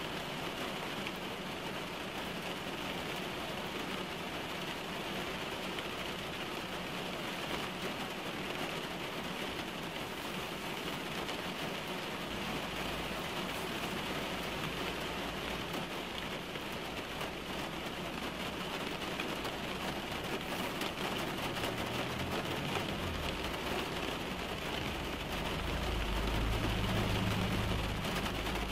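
Steady rain falling on the roof and windshield of a car, heard from inside the cabin as an even hiss. Near the end a low rumble builds up and then eases off.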